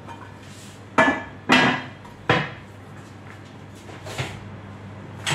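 Metal roasting pot and its lid clattering as they are handled: three sharp clanks with a brief ringing tone in the first two and a half seconds, then lighter knocks about four and five seconds in, over a steady low hum.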